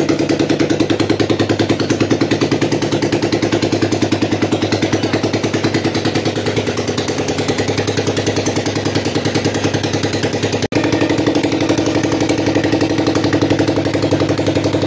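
Royal Enfield Bullet's freshly rebuilt single-cylinder four-stroke engine running steadily on its first start-up after the rebuild, with an even, rapid beat. The sound cuts out for an instant about eleven seconds in, then runs on a little louder.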